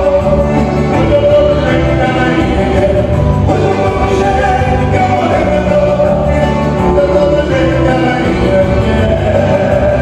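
Live band music, with accordion, electric bass and keyboard playing together under male singing.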